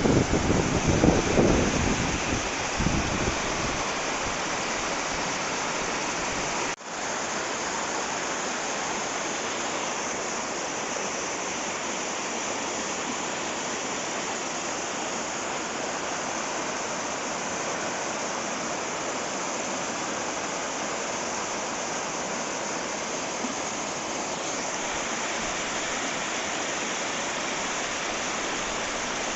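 Steady rush of water in a rocky mountain stream, with wind buffeting the microphone during the first few seconds. The sound cuts out for an instant about seven seconds in.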